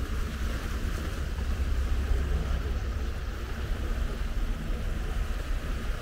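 Wind rumbling and buffeting on the microphone, over a steady wash of sea surf.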